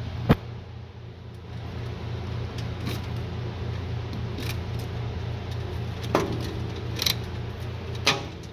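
Steady low machinery hum with about six sharp metallic clinks and knocks spread through it, the loudest near the start, as of tools and metal parts being handled during work on a CNC machine.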